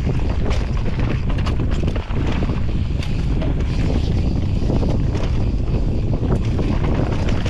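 Heavy wind buffeting the microphone of a mountain bike ridden fast downhill, over tyres running on dirt and many short knocks and clatters from the bike.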